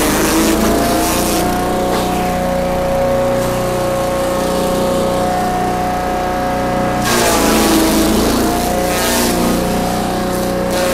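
Forage chopper driven by a small stationary engine running steadily while it shreds green leaves and grass stalks fed into its hoppers, with bursts of chopping noise as bundles go in. The engine pitch dips briefly under load about seven seconds in.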